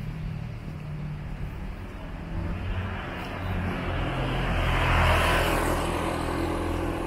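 Street traffic: vehicle engines running, with one vehicle passing close by about five seconds in, its engine and tyre noise swelling and then fading.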